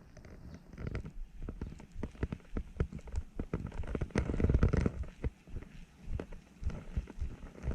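Irregular crackling clicks and knocks, with a louder, heavier stretch about four to five seconds in.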